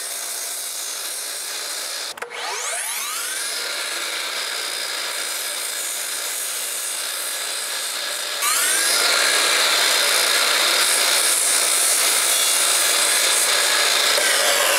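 Sliding compound miter saw running, its spinning blade cutting bevelled 45-degree miters into wooden muntin bars. The sound dips briefly about two seconds in and gets louder about eight and a half seconds in.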